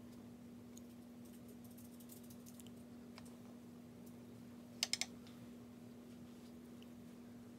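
Quiet room with a steady low electrical hum, a few faint ticks, and a quick run of three sharp clicks about five seconds in.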